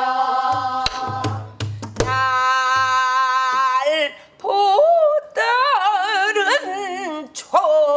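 A woman sings pansori, holding long steady notes and then sliding into a bending, wavering line with wide vibrato. In the first half she beats a few strokes on a buk barrel drum, low thumps with sharp stick hits under the held notes.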